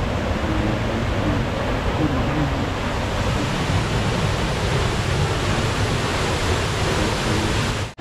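Steady rushing roar of Soochipara waterfall, an even, unbroken wash of falling water.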